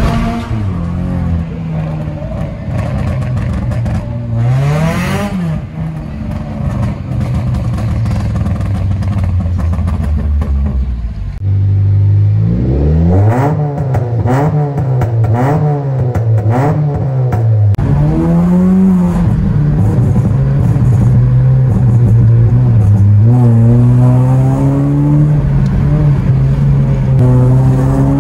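A tuned Honda four-cylinder with its catalytic converter removed and a new air intake fitted, revving up and down. About halfway through comes a run of quick throttle blips, and after that it runs more steadily under load, rising in pitch.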